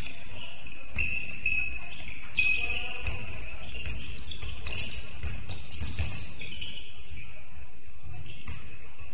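Basketball game on an indoor court: the ball thumping on the floor several times, short high sneaker squeaks, and indistinct voices.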